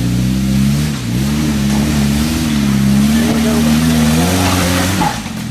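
Jeep engine revving off-road, its pitch rising and falling as the throttle is worked, dipping about a second in and climbing again, then dropping off abruptly near the end.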